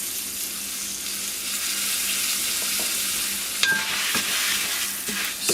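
Rice bubbles (rice krispies) crackling and rustling in a mixing bowl as warm melted copha and yellow food colouring are mixed through them: a steady fine crackle, with a light knock about three and a half seconds in.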